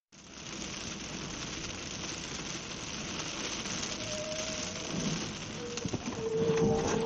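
Heavy rain hitting the windshield of a moving car, a steady hiss with the wiper blades sweeping across the wet glass. It grows somewhat louder toward the end, and two faint short tones sound about four and six and a half seconds in.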